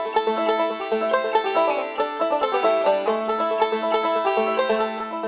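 Background music: a fast, plucked banjo tune.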